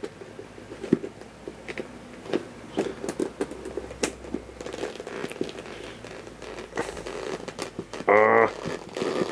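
Scratching, scraping and small clicks of a cutting tool working at a plastic band wrapped tightly around a cardboard box, which is hard to cut through. About eight seconds in comes a brief vocal sound.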